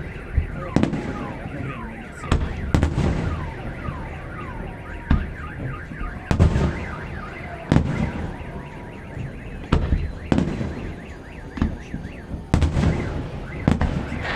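Fireworks display: aerial shells bursting with sharp bangs about a second apart. Under them a car alarm cycles through repeated falling wails, then a fast chirping run.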